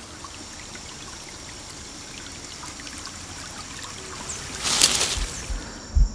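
Water trickling steadily with scattered small drips. A little before five seconds in comes a brief louder rush, and deep low thuds begin near the end.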